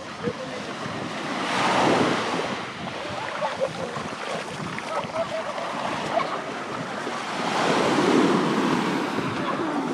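Sea waves breaking on a sandy beach, the surf swelling and falling back twice, about six seconds apart.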